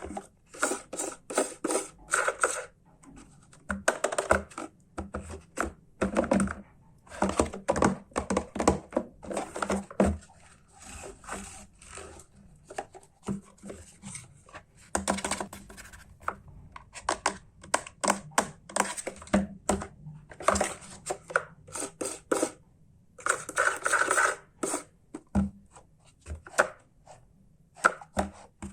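Hands unpacking and handling a plastic toy truck: a busy string of rustles, scrapes and tearing of packaging, with clicks and clatters of hard plastic, in bursts with short pauses.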